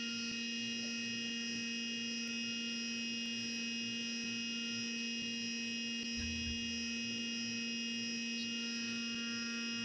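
CNC milling machine running a small 1/8 inch end mill through brass: a steady hum with a high-pitched whine, a few fixed tones held evenly throughout.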